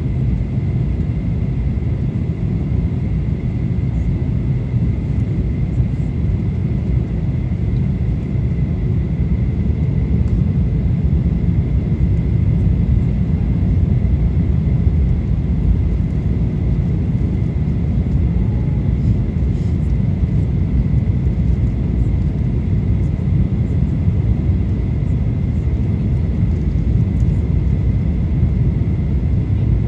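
Steady low rumble inside the cabin of a Boeing 737-900 descending on approach: its CFM56-7B engines and the airflow past the fuselage, heard from a window seat by the wing, with a thin steady high whine held at one pitch.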